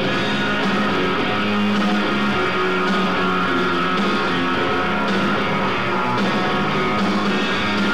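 Live rock band playing an instrumental passage: electric guitar over a drum kit, loud and continuous.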